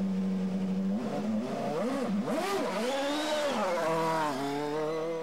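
An engine running steadily, then blipped up and down several times in quick revs and given one longer rev before settling back to a steady run.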